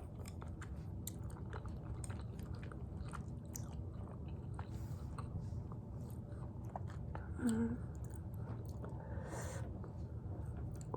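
Close-miked, loud chewing of spicy tteokbokki rice cakes and kielbasa, with many small wet mouth clicks. There is a brief hummed sound about two-thirds through and a short breath near the end.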